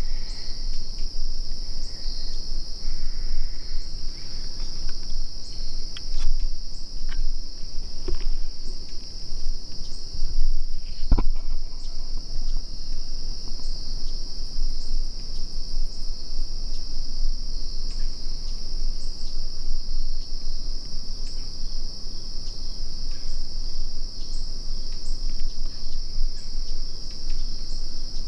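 Insect chorus: a steady high-pitched trill, with a single faint click about eleven seconds in.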